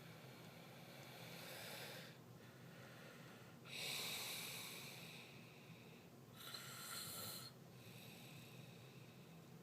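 A sleeping man breathing noisily and snoring, three breaths in all, the loudest a sudden snort about four seconds in. He is a sleeper who, by his wife's account, stops breathing in his sleep.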